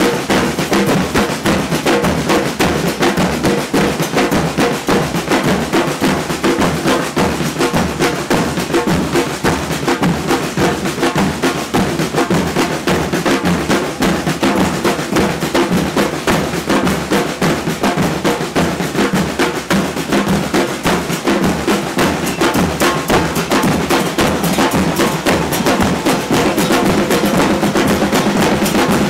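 Murga drum line of bass drums and snare drums playing a fast, steady, continuous beat.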